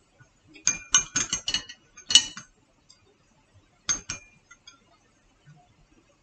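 Chopsticks clinking against a plate: a quick run of about five clinks, one louder clink a moment later, and two more about four seconds in.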